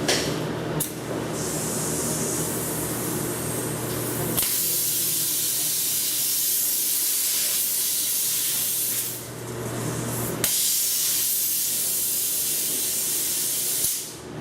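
Compressed air hissing from a pneumatic control rig, in stretches that start and stop abruptly with sharp clicks. The hiss grows strong about four seconds in, dips briefly, returns with a click about ten seconds in, and cuts off near the end.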